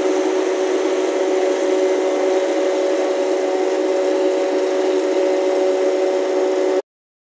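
Truck-mounted disinfectant mist cannon running, its fan blowing a steady hissing spray with a steady two-note hum. The sound cuts off suddenly near the end.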